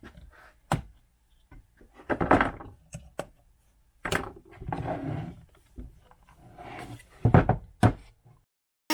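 Wooden workpieces being handled on a bench: a run of separate knocks, clicks and scraping, with two loud thunks near the end and a few short silent breaks.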